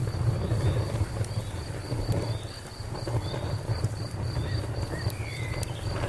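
Wood fire burning, with a steady low rumble and scattered sharp crackles and pops. A high insect chirp repeats evenly, about four times a second.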